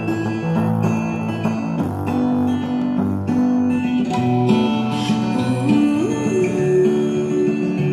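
Hammer Pro Bluetooth speaker playing guitar music, with a line of low bass notes moving under the guitar.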